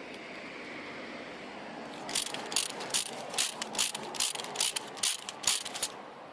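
Plastic cable tie being pulled tight, its teeth zipping through the locking head in a series of about ten short ratcheting pulls, roughly three a second, starting about two seconds in.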